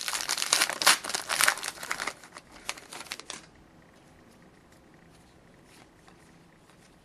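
Wrapper of a hockey card pack being torn open and crinkled, a dense run of crackling for about three and a half seconds, then only a few faint rustles.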